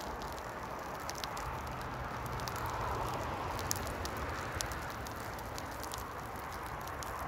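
Steady rush of traffic on a dual carriageway, swelling and easing as vehicles pass, with scattered sharp crackles from the cooking fire.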